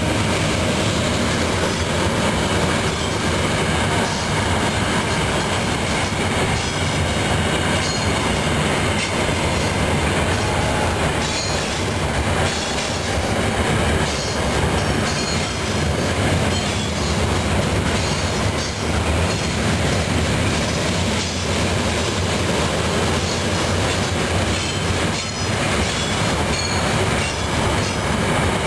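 Freight train of loaded open-top hopper cars rolling past: a steady, loud rumble and clatter of steel wheels on the rails, with scattered clicks from the wheels over the rail joints.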